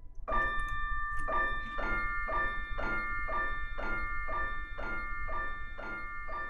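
Background music of ringing, bell-like notes struck about twice a second, each note sustaining into the next.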